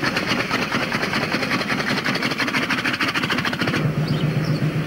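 Small veteran motorcycle engine running with a rapid, even beat. About four seconds in it cuts off abruptly, leaving a steady low hum.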